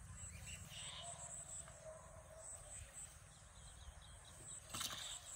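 Faint insects chirping steadily in a pulsing high-pitched trill, with a few bird chirps over low outdoor background noise. A brief sharp noise breaks in near the end.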